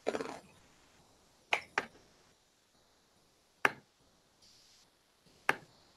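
Computer mouse clicking on a desk, picked up by a nearby desk microphone: a quick pair of clicks about a second and a half in, then single clicks about two seconds apart.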